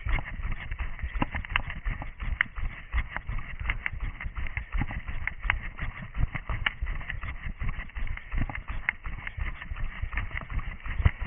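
A runner's footsteps picked up by a camera worn on the runner, an uneven run of thuds about two to three a second.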